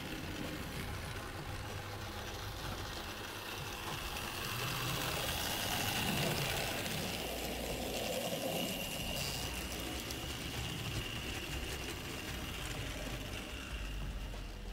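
Model railway steam tank locomotive (a BR Standard 2-6-4T numbered 80054) running along the track under power: its small electric motor gives a steady high whine over a rattle of wheels on rail, getting louder towards a peak about six seconds in as it comes closer.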